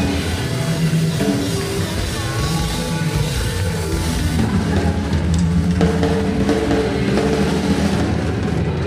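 Live band playing a country-rock song, with a full drum kit driving the beat under electric guitars, bass guitar and keyboards.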